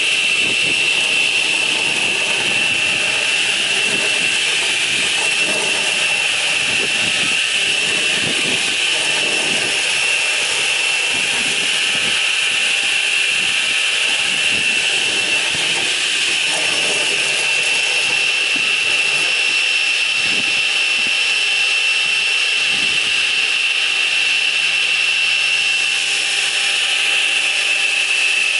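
DeWalt radial arm saw running at full speed with no wood being cut: a steady motor and blade sound with a high, constant whine.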